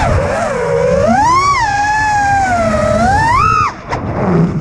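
FPV racing quadcopter's brushless motors whining as heard from the onboard camera, the pitch rising and falling with the throttle. The whine cuts briefly near the end, during a roll, then climbs again.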